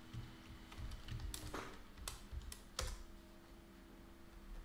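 Faint, sparse keystrokes on a computer keyboard: a few separate key clicks spread over the seconds.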